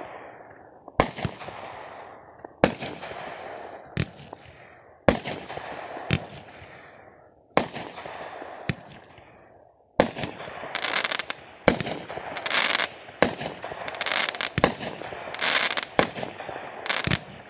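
Aerial fireworks bursting overhead, a sharp bang every second or so, each followed by a long fading echo. From about ten seconds in the bursts come faster, with a dense crackling sizzle between the bangs.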